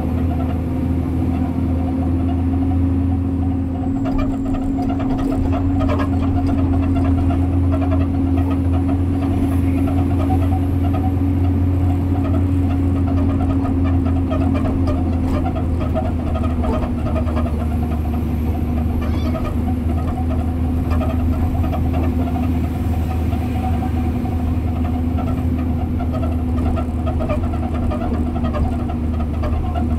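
Concrete mixer truck's diesel engine running steadily on the road, a constant drone whose pitch eases down slightly about halfway through.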